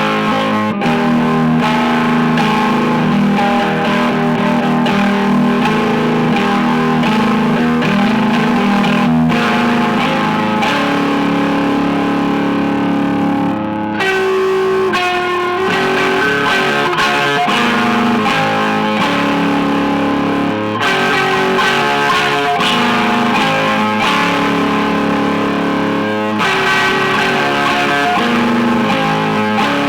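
Electric guitar being played with an overdriven tone: sustained notes and chords running on, with short breaks about halfway through and again about two-thirds in.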